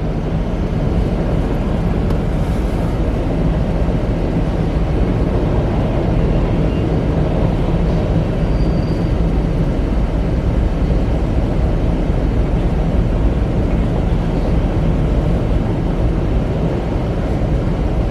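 An EMD SD40-2W diesel-electric locomotive's 16-cylinder two-stroke engine running as the freight train moves past, a loud, steady low rumble that builds over the first second and then holds.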